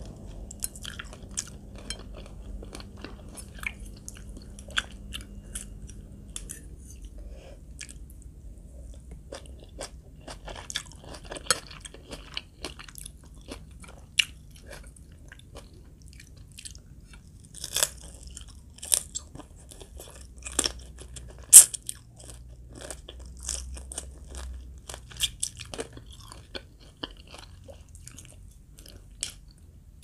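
Mouth sounds of a person eating crab and shredded green mango salad: continual chewing with many short crackly crunches, the sharpest one about two-thirds of the way through.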